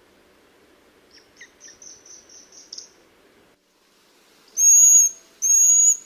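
Eurasian pygmy owl calling: a quick series of about eight short, thin, high notes that grow louder, then two long, loud, piercing high whistles near the end.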